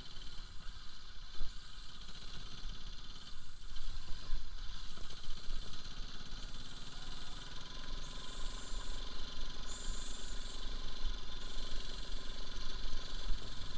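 Bajaj Pulsar RS200's single-cylinder engine running at low speed while the bike rides over a rough dirt and gravel track. Wind rumble on the microphone runs alongside it.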